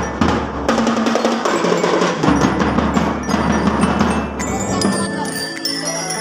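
Drum band music: drums beating with bright bell-lyre notes over them, the ringing bell notes standing out more clearly near the end.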